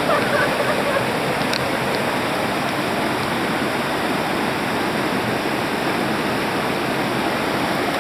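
River rapids rushing steadily over boulders: a constant whitewater roar.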